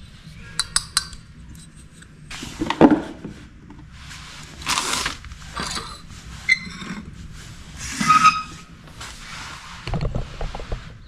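Stainless-steel juicer mesh basket and jars handled and set down on a wooden tabletop: a string of separate clinks, knocks and scrapes, some clinks ringing briefly, the loudest a knock about three seconds in.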